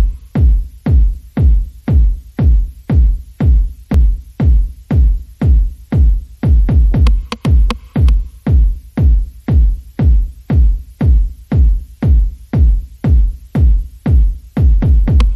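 Background music: an electronic track with a steady, heavy kick drum about twice a second.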